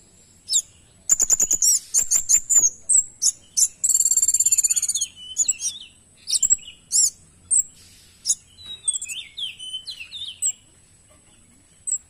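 Kemade songbird singing a busy, varied song of sharp chirps, chattering notes and sweeping whistles, with a long, fast, even trill about four seconds in. A faint steady high-pitched tone runs underneath.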